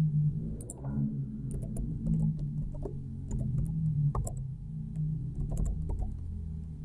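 Soft background synthesizer music with sustained low notes, over a dozen or so scattered sharp clicks that fit keystrokes on a computer keyboard as a transaction code is typed.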